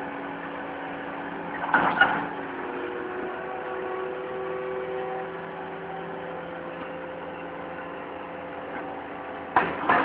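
Skid-steer loader engine and hydraulics running steadily with a steady whine while a hydraulic auger bores into the soil. Two loud clanks break in, about two seconds in and again just before the end.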